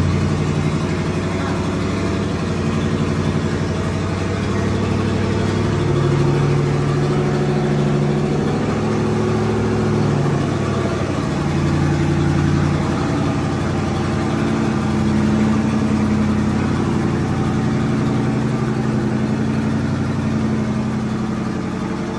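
Square-body pickup's engine running as the truck is driven slowly off the lift and out of the shop, its speed rising and falling several times. It is the first run after the Turbo 350 transmission was refitted.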